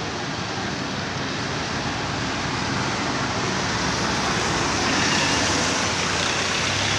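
Road traffic on rain-wet asphalt: tyres hissing on the wet surface with engines running, growing a little louder in the second half as a vehicle passes close.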